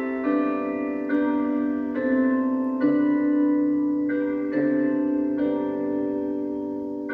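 Bell tower chimes playing a slow tune: single notes struck roughly once a second, each ringing on and overlapping the next.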